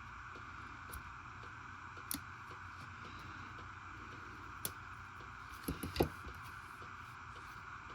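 Knives and their packaging being handled: scattered light clicks and taps, with a cluster of louder knocks about six seconds in, over a steady background hiss.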